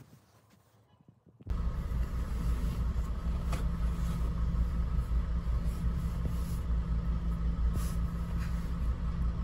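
Steady low rumble of a moving car, engine and road noise heard from inside the cabin, with a faint steady hum above it. It starts suddenly about a second and a half in, after a near-quiet moment.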